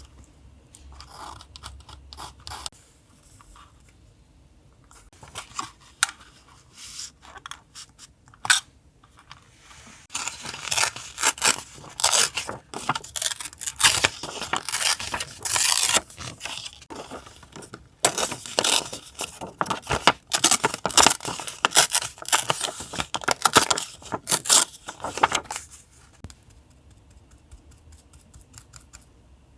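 Paper being handled and torn: light rustling and a sharp click, then a long stretch of dense crackling tearing and crinkling from about ten seconds in until near the end.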